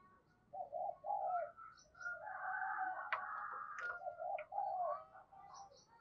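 Spotted dove cooing: short runs of low coo notes, with a busier stretch of calling in the middle. Faint chirps of small birds are heard behind it.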